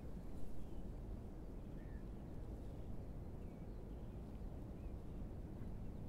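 Strong wind buffeting the microphone as a steady low rumble that swells and dips. Faint short bird calls sound a handful of times above it.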